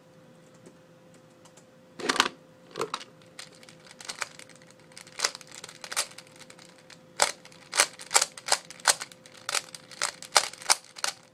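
Hand-turned Type C-II 3x3 speedcube being scrambled: sharp plastic clicks of its layers turning, a heavier knock about two seconds in, then the turns coming faster, several a second, in the second half.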